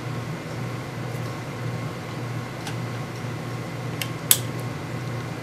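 A rotary microtome facing a paraffin-embedded tissue block, making a few light clicks and one sharper click about four seconds in, over a steady low machine hum.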